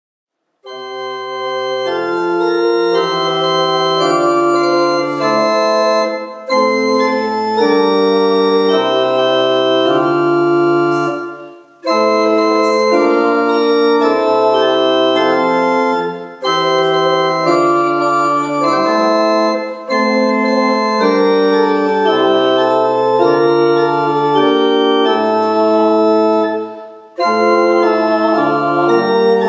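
Church pipe organ playing a slow piece in sustained chords, starting about a second in, phrase by phrase with short breaks between phrases.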